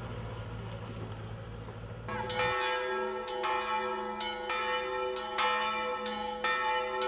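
A low hum for about two seconds, then church bells start ringing, struck over and over at several pitches, each stroke ringing on under the next.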